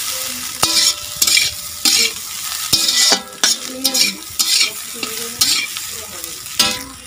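Metal spatula scraping and stirring thin-sliced potato fry in a large kadai, in rhythmic strokes about twice a second, over a steady sizzle of hot oil. The potatoes are done frying.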